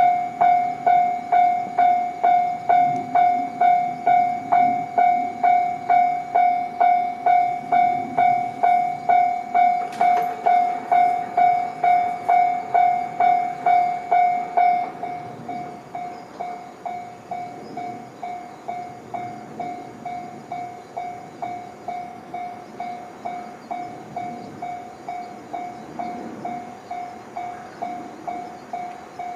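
Japanese railway level crossing's electronic warning bell ringing in a steady clang-clang, about two strokes a second. It drops noticeably in loudness about halfway and keeps ringing at the lower level.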